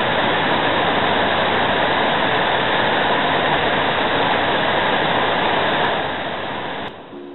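White water rushing over rocks in a creek below a dam, a steady, loud rush of water that fades away near the end.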